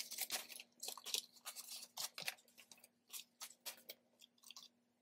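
Paper banknotes rustling and flicking as they are counted and sorted by hand: a run of short, crisp rustles, quick and close together at first, then sparser toward the end.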